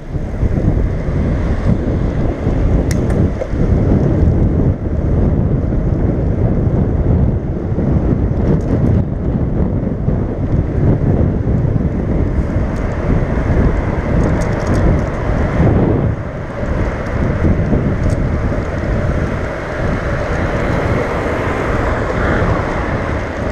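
Wind noise buffeting the microphone of a camera on a moving bicycle: a loud, steady rushing.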